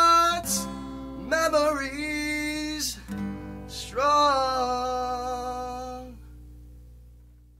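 The closing bars of a song: a singer holds out long notes over strummed acoustic guitar. The last chord rings out and fades away over the final seconds.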